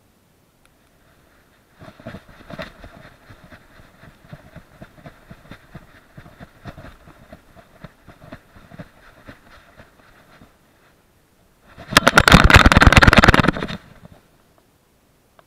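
SJ4000 action camera on a dog's chest harness knocking and rattling in its mount as the dog moves. A run of small clicks starts about two seconds in and lasts until about ten seconds. About twelve seconds in comes a loud two-second burst of fast, rapid rattling.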